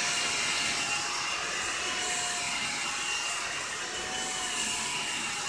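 Blow-dryer straightener (hot-air brush) running steadily on its low setting: a steady rush of air over a faint motor whine.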